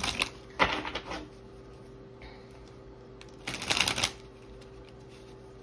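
A deck of tarot cards being shuffled by hand in three short bursts: at the start, just over half a second in, and about three and a half seconds in. A faint steady hum runs underneath.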